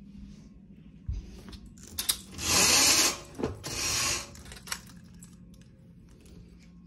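A roller window shade being raised: two loud, noisy mechanical runs, the first about a second long and the second a little shorter, with a few sharp clicks before and after.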